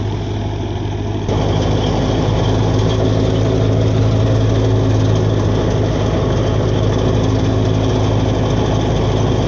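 Tractor-driven mustard thresher running: the Massey Ferguson 240's three-cylinder diesel engine runs at a steady hum under load, with the thresher's continuous mechanical rattle and whir. It gets louder about a second in, then stays steady.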